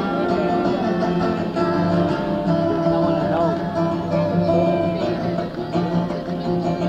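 Live guitar music: plucked and strummed strings over a steady low note, with no singing. It is an audience recording on a mid-1970s cassette, so it sounds dull, with the top end cut off.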